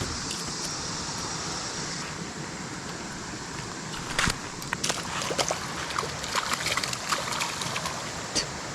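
Creek water running steadily, with scattered sharp clicks and light knocks from about four seconds in.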